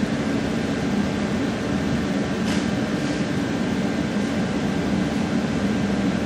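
Steady machine hum running throughout, with one light click of metal parts being handled about two and a half seconds in.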